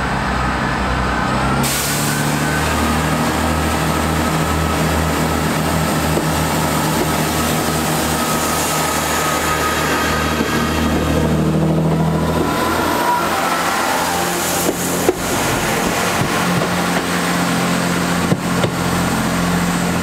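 Class 165 diesel multiple unit running along a station platform: a steady drone from its underfloor diesel engines over wheel and rail noise. A few sharp clicks from the wheels come through in the second half.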